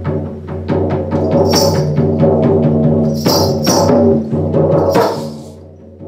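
A hand-held frame drum beaten in a quick, steady pulse over a sustained low droning tone, with a few brief hissing swishes. The music fades down about five seconds in.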